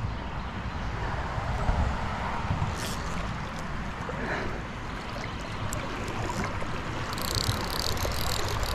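Tailwater river flowing, a steady rushing of water, with a low rumble underneath and a few faint ticks.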